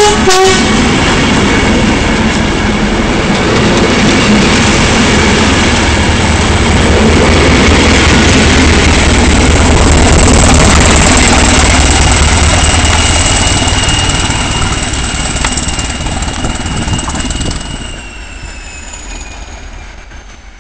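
A train passing at speed just after a short horn blast that ends about half a second in. The rumble and rail noise build to their loudest near the middle, then fall away in the last few seconds as a high whine slides down in pitch.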